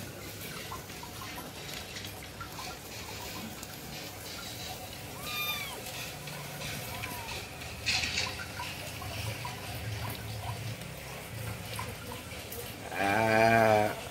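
Aquarium water bubbling steadily from the air pump, with a kitten giving a few short, high mews. About eight seconds in there is a sharp knock, and near the end a louder, wavering cry lasts about a second.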